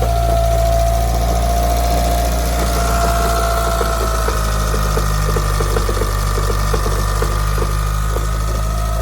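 Mitsubishi 4G63 turbo four-cylinder engine idling with a fast, heavy rattling knock coming from low in the engine, over a steady whine that steps up in pitch about a third of the way in. The rattle comes from a loose flywheel bolt letting the flywheel wobble.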